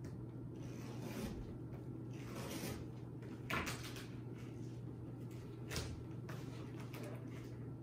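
Rustling and a couple of sharp knocks from a gift parcel being handled and opened, over a steady low hum.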